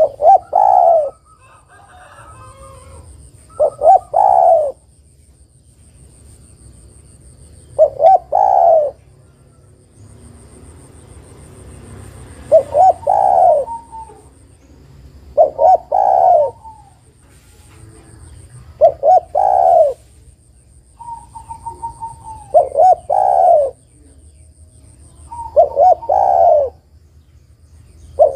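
Spotted dove cooing: about eight phrases of its short multi-note coo, one every three to four seconds.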